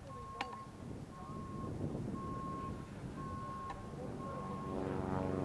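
Vehicle reversing alarm beeping: five even single-tone beeps, about one a second, each about half a second long, over general outdoor background noise. Near the end the beeping stops and a louder steady drone sets in.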